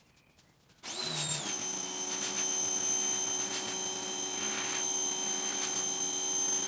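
A pressure washer starts up about a second in and runs steadily with a high whine, its pitch settling slightly lower just after it starts.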